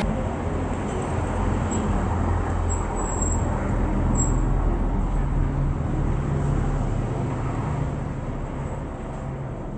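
Road traffic noise: the low rumble of passing motor vehicles, swelling toward the middle and easing off near the end.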